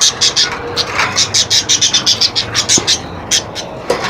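Pet budgie chattering in a fast run of short, scratchy high chirps, about five or six a second, thinning out after about three seconds.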